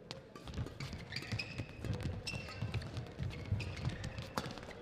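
Badminton rally: rackets sharply striking the shuttlecock back and forth, with shoes squeaking and feet thudding on the court floor.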